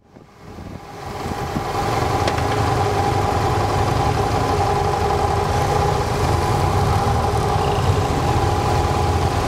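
Motorcycle engines running, heard from a motorcycle riding past a line of waiting bikes. The sound fades in over the first couple of seconds, then holds steady as a low rumble with a steady hum above it.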